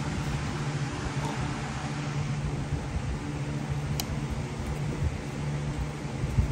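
A small motor running steadily with a low hum and a fan-like whir, and a light click about four seconds in.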